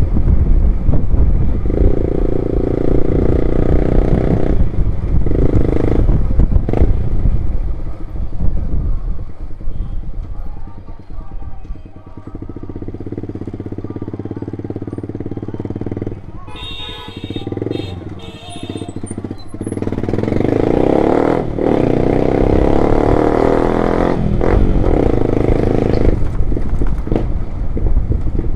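Loud motorcycle engine with a loud exhaust, ridden slowly, its note rising and falling with the throttle. About twelve seconds in it settles to a quieter, steady running note, then picks up again around twenty seconds in.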